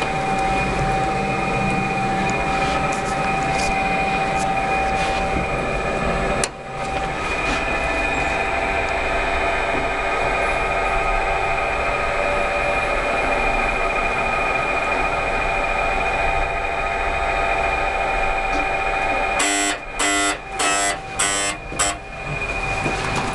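Mitsubishi NexCube elevator car running with a steady mechanical hum and whine, with a sharp click about a third of the way in. Near the end its door-open buzzer sounds a series of about five short beeps as the doors open on arrival.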